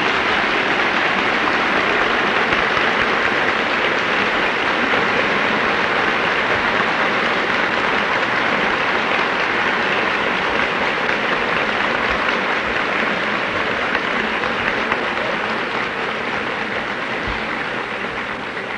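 Large audience applauding steadily, a dense sustained clapping that fades off near the end.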